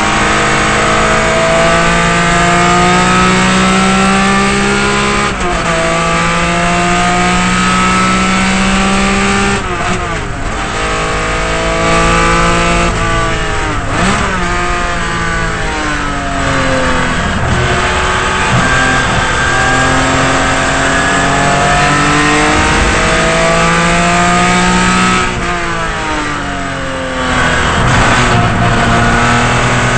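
1972 Datsun 240Z C Production race car's straight-six engine at racing speed, heard from inside the cockpit. Its pitch climbs steadily in each gear and drops sharply at upshifts. It falls away through downshifts under braking about ten seconds in and again near the end, then climbs again.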